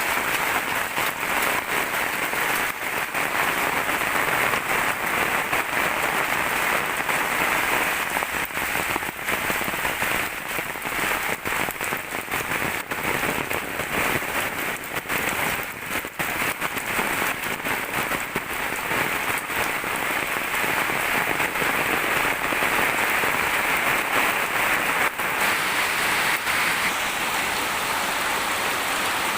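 Steady rain falling and pattering, with a dense hiss of drops and many small ticks of individual drops.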